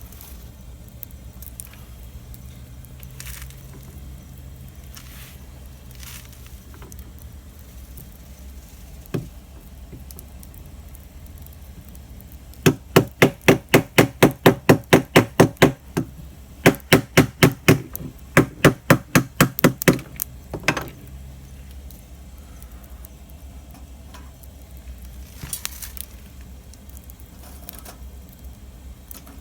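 Campfire crackling with scattered sharp pops. Through the middle there are three runs of loud, rapid knocks, about four a second, the first run the longest.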